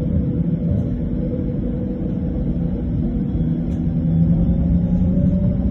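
Tram running along its rails: a steady rumble with a low motor hum that edges up slightly in pitch over the last couple of seconds.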